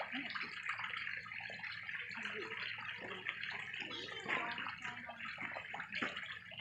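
Steady running water in a beaver enclosure's pool, with faint voices in the background.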